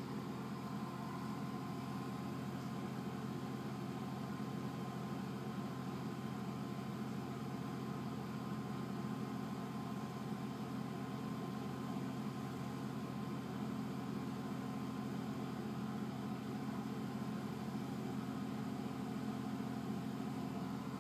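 Steady low mechanical hum, like a fan or small motor running, with a faint even hiss over it and a thin steady whine; it does not change.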